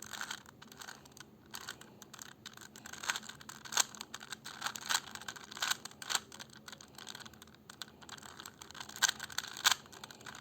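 Rubik's cube being turned by hand: irregular plastic clicks and clacks of its layers, some in quick flurries.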